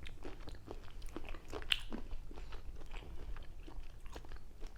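Close-miked chewing and biting of cocktail shrimp, made up of many short, irregular mouth clicks.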